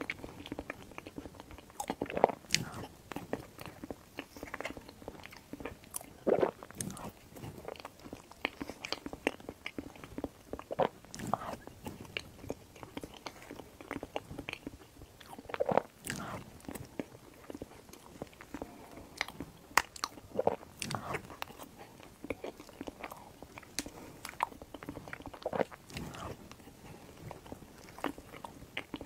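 Close-miked mouth sounds of someone eating a dense matcha and Basque cheesecake dessert: irregular bites, wet chewing and lip smacks, with occasional sharp clicks of a metal fork.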